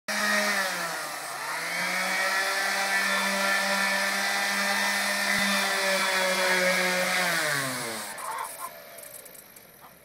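Corded electric palm sander running against a wooden birdhouse roof. Its motor pitch dips briefly about a second in, holds steady, then falls away as it is switched off and spins down near the end.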